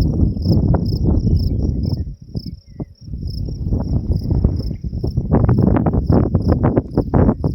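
Strong wind buffeting the microphone in a loud, gusty rumble that drops off briefly about two seconds in, then comes back in sharp gusts. Crickets chirp steadily behind it in an even pulse, about two to three chirps a second.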